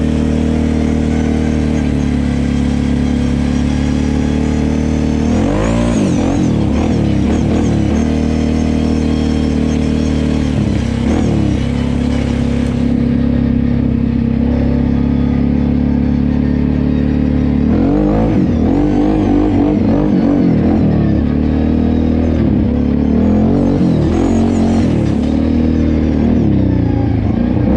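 A fully rebuilt Kawasaki KFX 700 ATV's V-twin engine running at low speed. It revs up and back down with throttle blips about six seconds in, again around eleven seconds, and several times over the last ten seconds.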